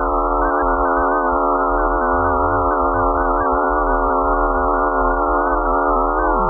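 Space sonification attributed to the Mars system: a dense electronic drone of many steady, slightly wavering sine-like tones stacked together over a low rumble. One lower tone drops sharply in pitch near the end.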